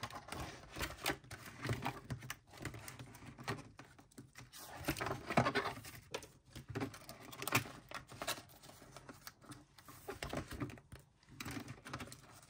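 Plastic binder sleeves crinkling and rustling as they are handled, with scattered light taps and clicks.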